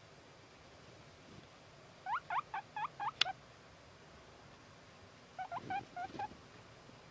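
Guinea pig wheeking: two runs of short, rising, high-pitched squeaks, about six in the first and five in the second, a couple of seconds apart. A sharp click ends the first run.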